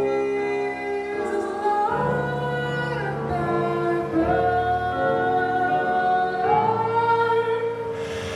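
A man singing long held notes into a microphone over instrumental backing, the melody moving in steps from note to note.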